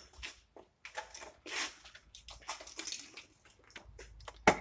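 Rustling and clattering as a bulky car battery charger and its cables are handled and brought onto a bench, ending with a sharp thump as it is set down near the end.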